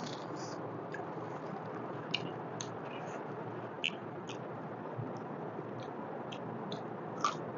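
Close-up eating sounds from chewing mutton paya, the gelatinous goat-trotter curry, by hand: a scatter of short wet mouth clicks and smacks over a steady low hiss.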